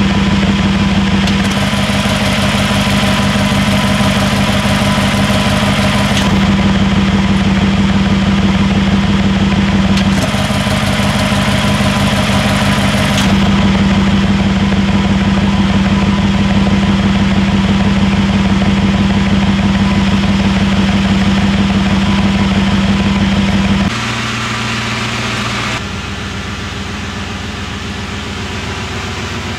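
Mercedes-AMG G63's twin-turbo V8 idling steadily through an Akrapovič Evolution titanium exhaust with its exhaust valves open. About 24 seconds in it turns quieter and duller, heard from inside the cabin.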